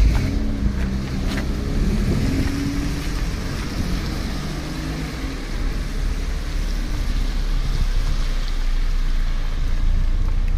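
Street traffic on a wet, slushy road: cars driving past with a low engine hum in the first few seconds and a steady hiss of tyres on the wet surface, over a constant low rumble.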